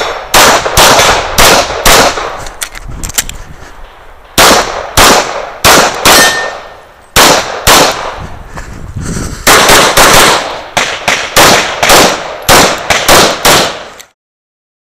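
Rapid semi-automatic pistol fire in a practical-shooting stage: about two dozen sharp shots in quick strings of pairs, with brief pauses between strings. The sound cuts off abruptly about a second before the end.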